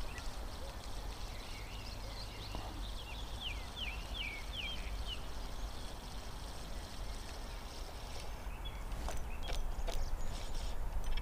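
A low steady rumble under a bird's quick run of short chirping notes about three seconds in, followed by a few sharp clicks near the end.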